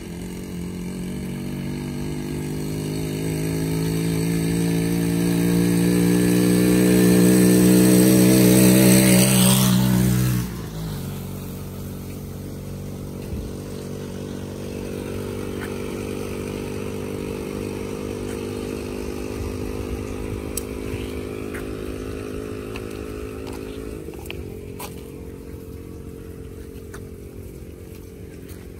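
A small engine running at a steady speed, growing louder over the first ten seconds. Its sound cuts off abruptly about ten seconds in, and a fainter steady engine hum carries on after that.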